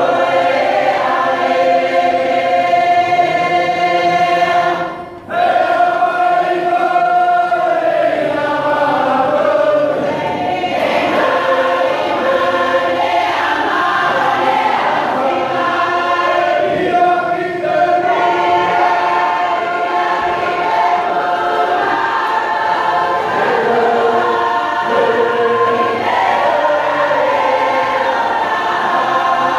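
A church congregation singing a hymn in Cook Islands Māori, many voices together on long held notes, with a short break between lines about five seconds in.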